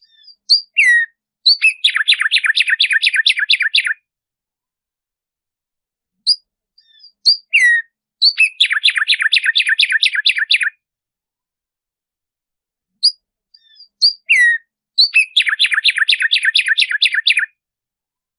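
Black-striped sparrow (tumbayegua) singing its song three times. Each song opens with a few short high notes and a down-slurred note, then runs into a rapid series of chirps, about seven a second, lasting some two seconds.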